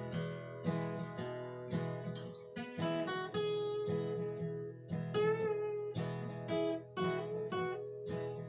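Acoustic guitar playing an instrumental passage of a slow country song, chords strummed in a steady rhythm, with no singing.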